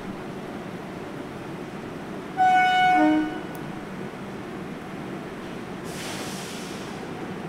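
Train horn sounding one short blast of under a second, a high note that drops to a brief lower note at the end, over steady monsoon rain; a fainter hiss follows a few seconds later.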